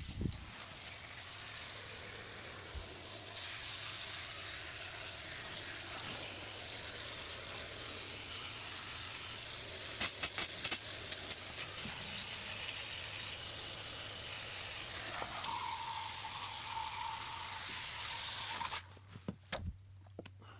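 Aerosol spray can hissing steadily as a mist is sprayed onto the wood pieces, with a few quick clicks around the middle and a faint steady whistle added later; the hiss stops sharply near the end.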